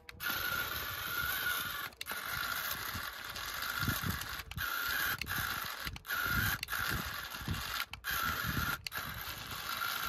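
Electric drive motor and gearbox of a remote-control Swaraj 855 model tractor whirring and rattling under load as it strains to pull a soil-laden trolley through sand. The whine cuts out briefly about six times. Only one rear wheel is driving, which the owner puts down to a loose wheel nut on the other side.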